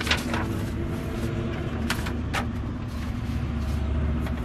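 Semi truck's diesel engine idling, a steady low drone heard inside the cab. Paper rustles on a clipboard as a page is turned near the start, with a couple more brief rustles about two seconds in.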